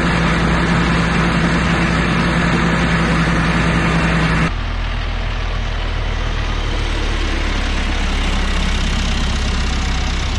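A steady engine running, like a vehicle idling. About four and a half seconds in it cuts abruptly to a quieter, deeper steady engine noise.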